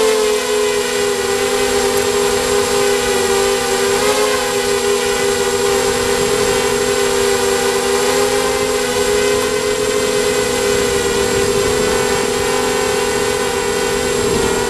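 Emax Nighthawk 250 quadcopter's four brushless motors and propellers whining at flight speed, heard from the onboard camera, with a steady pitch that dips and rises slightly as the throttle changes.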